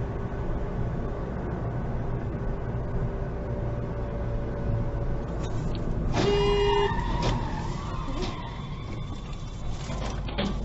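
A car driving on a road, with steady engine and tyre noise heard from inside the cabin. About six seconds in, a short loud tone sounds for under a second.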